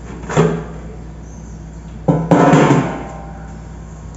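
Two hollow knocks of cookware being handled as the baked cake in its pan is lifted out of the air fryer basket. The second knock, about two seconds in, is the louder one and rings briefly.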